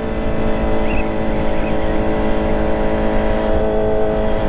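Kawasaki ZX-25R's 250 cc inline-four running steadily through a Prospeed Shark high-mount aftermarket exhaust while being ridden. The pitch climbs slightly near the end.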